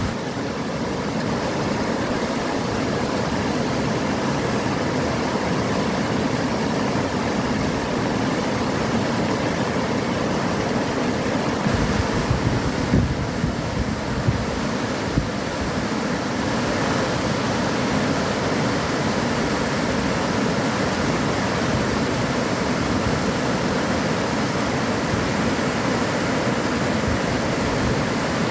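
Floodwater rushing steadily over a low causeway, a continuous churning water noise, with a few brief bumps near the middle.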